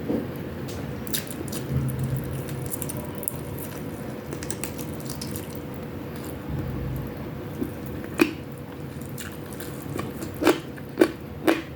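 A person chewing food close to the microphone, with wet mouth clicks and smacks. A few sharper, louder smacks come in the last few seconds.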